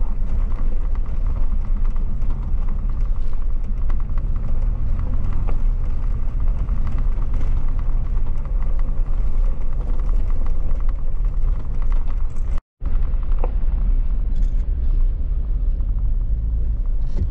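Jeep driving slowly over a gravel desert trail: steady low engine and tyre rumble with small knocks and rattles. The sound cuts out for a split second about three-quarters of the way through.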